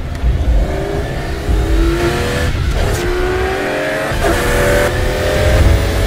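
The 1,258 hp McLaren W1's hybrid V8 accelerating hard. Its pitch climbs, drops back about two and a half seconds in and again about four seconds in as it shifts up, then climbs again.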